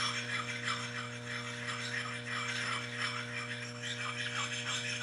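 Oiled soft sharpening stone rubbed in quick strokes, about two or three a second, along the cutting edge of a Jersey pattern axe's bit, honing it after filing. A steady electrical hum sits underneath.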